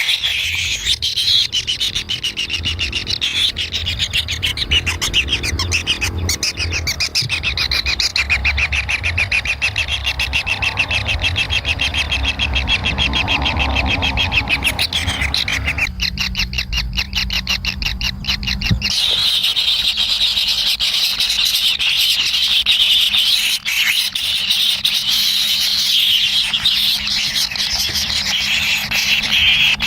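Kingfisher chicks begging in the nest: a continuous high, rasping chorus of rapid calls that turns into a fast buzzing trill in the middle. A low rumble runs under it for the first two-thirds and stops.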